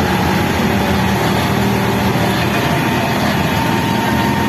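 An engine running steadily under a constant dense noise, with a steady low hum and a fainter higher tone.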